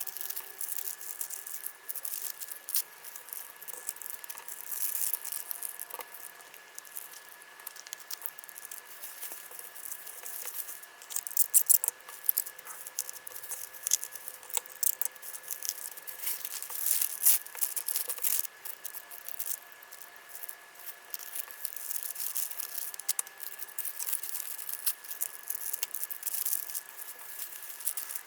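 Hands packing small accessory orders: irregular crinkling and rustling of plastic packaging with light clicks and rattles of small items.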